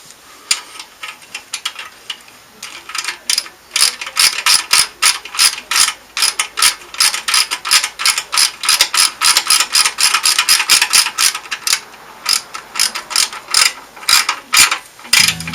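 Hand ratchet wrench clicking in quick, even strokes. It starts with a few scattered clicks, runs steadily at about four to five strokes a second for most of the time, then slows to scattered clicks near the end.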